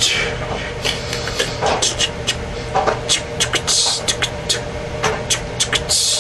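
Mouth sound effects, beatbox-like: irregular tongue clicks and short hissed "ts" sounds, with a few stronger hisses about half a second and four seconds in, over a steady low hum.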